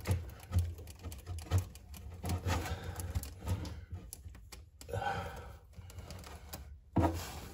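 Irregular clicks, taps and rustling from hands and tools working at the water shut-off valve and supply line under a sink, a valve that is tight and won't come off, with a sweatshirt sleeve brushing close to the microphone.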